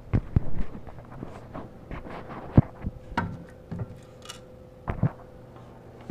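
Scattered metal clicks and knocks as the small safety chain holding down a mini chop saw's head is worked loose by hand, with handling bumps; the sharpest click comes about two and a half seconds in.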